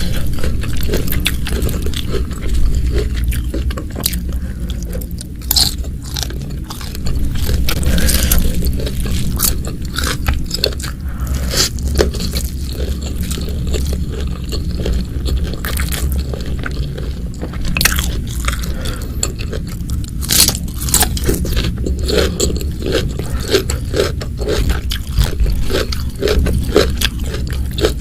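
Close-miked eating sounds: a person biting and chewing crunchy food, from a meal of salted squid with sambal terasi, raw petai beans, raw bitter melon and rice. There are frequent short, sharp crunches throughout.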